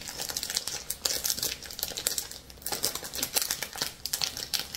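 Clear plastic packaging of a diamond painting kit crinkling and crackling irregularly as hands work at it, trying to get it open.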